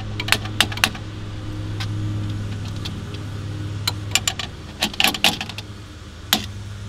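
Scattered sharp clicks and light taps: several in quick succession at the start, a cluster in the middle and one more near the end. A steady low hum runs underneath.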